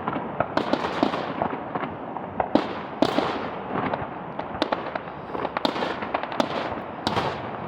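Distant fireworks going off: a scatter of sharp bangs and pops at irregular intervals, several a second at times, over a continuous echoing rumble.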